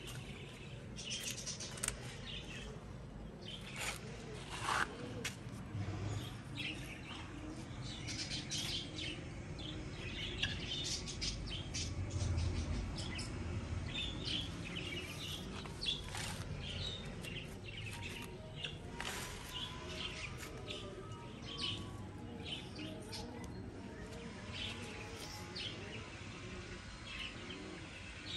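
Birds chirping and tweeting in short, scattered calls throughout, over a faint low background rumble.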